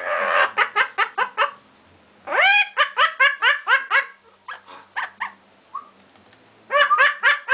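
Parrot calling in several bursts of quick, high repeated notes, about seven a second, with short pauses between the bursts.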